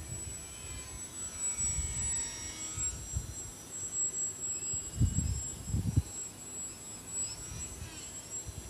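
Small electric RC aerobatic plane (HobbyKing Mini Saturn) in flight: the thin, high whine of its motor and propeller, gliding up and down in pitch as the throttle changes and the plane passes. Gusts of wind rumble on the microphone about two seconds in and again around five to six seconds.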